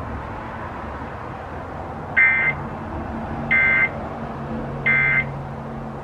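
Emergency Alert System digital data tones from a TV: three short, identical buzzing bursts about a second and a quarter apart, over a low steady hum. Their shortness fits the alert's end-of-message code (NNNN) that closes the monthly test.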